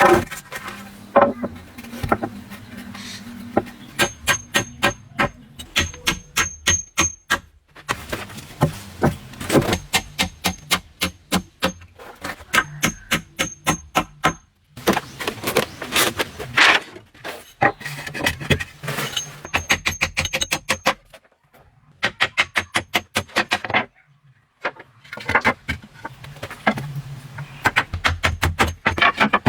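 Runs of quick, sharp knocks, several a second, broken by short pauses; some runs carry a faint high ringing.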